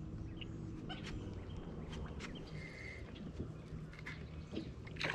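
Steady low hum of a bass boat's bow-mounted electric trolling motor, with scattered light clicks.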